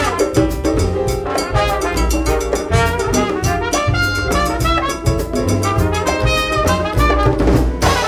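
Live jazz band playing: trumpet and trombone sounding together at the front, over piano, double bass, congas and drum kit.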